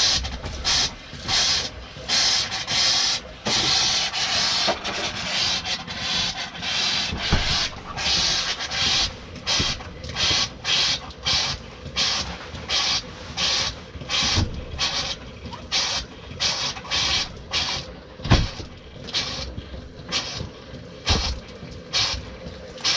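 Water sputtering and spitting from a tap in irregular bursts, one to two a second, as air is purged from a travel trailer's freshly filled water lines.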